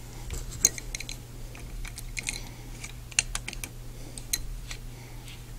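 Scattered light clicks and taps of small plastic toy parts and a metal hand tool being handled, as a pin is worked back into an action figure's shoulder joint. The clicks come irregularly, a dozen or so, the sharpest about half a second in and about three seconds in.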